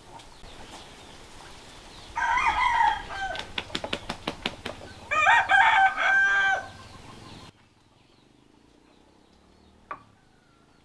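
A rooster crowing twice, a short call about two seconds in and a longer one about five seconds in, with a run of short sharp clicks between the calls.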